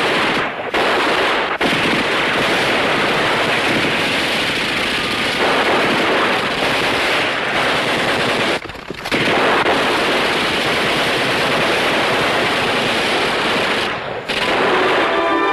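Sustained automatic gunfire from a machine gun fired from the hip, in long continuous bursts with short breaks near the start, about nine seconds in and near the end.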